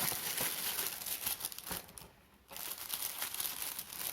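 Packaging crinkling and rustling as a cordless phone handset is lifted out of its box, with a short pause a little past the middle.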